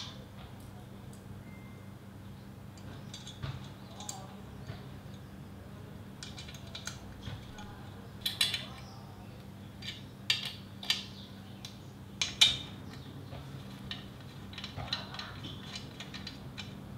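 Scattered small metallic clicks and clinks of bolts, a curved washer and capped nuts being fitted and tightened with a small spanner to fix an exercise stepper's metal handlebar, with a few sharper clinks in the middle.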